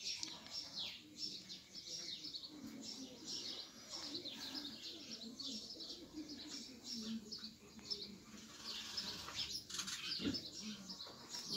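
Busy bird chirping: many short, high chirps and cheeps keep going without a break, with softer, lower clucking from hens underneath. A single sharp knock comes near the end.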